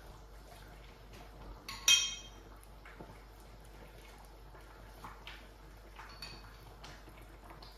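Hands working marinade into a raw whole chicken, with faint wet handling sounds and one sharp ringing clink of metal against a ceramic bowl about two seconds in.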